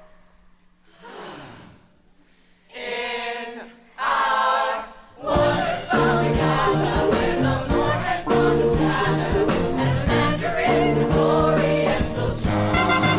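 Musical-theatre chorus singing with a pit band. A few short sung phrases come over near quiet, then about five seconds in the full cast and band come in loud together, with a steady beat.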